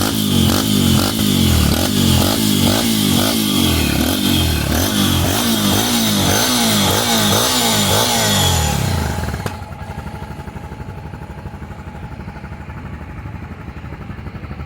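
Honda XRE 300's single-cylinder engine through a stainless-steel full-system aftermarket exhaust, revved in quick repeated throttle blips about twice a second, then dropping back to a steady idle about nine and a half seconds in.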